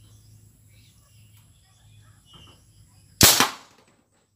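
A single sharp shot from a homemade PVC marble gun, about three seconds in, dying away within half a second. Faint bird chirps before it.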